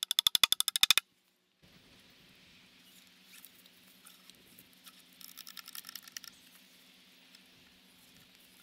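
A rapid run of about a dozen loud, evenly spaced clicks lasting about a second, then faint rustling and light ticks as a strap is wrapped around a tree trunk, with a brief pitched squeak about five seconds in.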